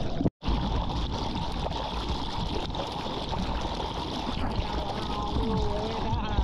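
Seawater sloshing and gurgling around a GoPro camera in the surf, steady throughout, with the sound dropping out completely for a split second near the start.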